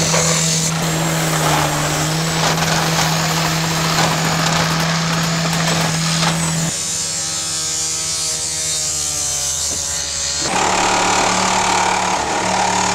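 Power saws cutting through a limousine's steel body: a handheld cut-off saw, then a reciprocating saw. The sound changes abruptly twice.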